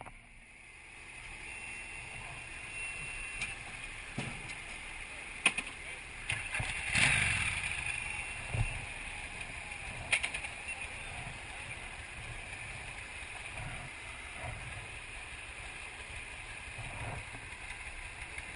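Scattered knocks, clicks and rustling of the camera being handled and bumped, over a steady background hiss. The sharpest knock comes about five seconds in, and a cluster of rustles and clicks follows over the next few seconds.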